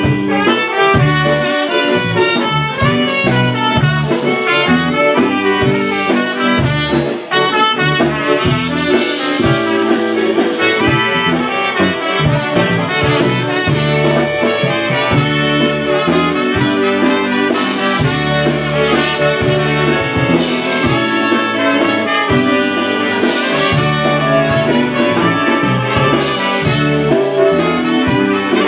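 Live polka band playing an instrumental passage: two trumpets carry the melody over electric bass, with a steady beat.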